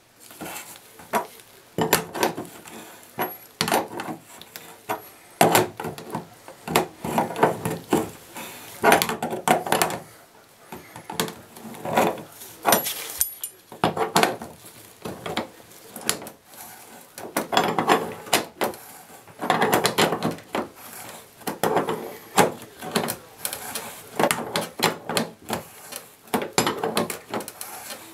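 Metal tool clicking and clinking in quick, irregular clusters against a bathtub faucet's valve stem as a socket wrench turns the stem back in.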